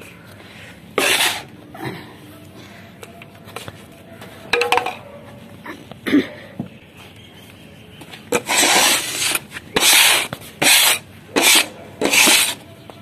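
Loose potting soil being scraped up off a hard floor and tipped back into a pot: short, rough scraping rushes, a few spread out at first, then about six in quick succession in the second half.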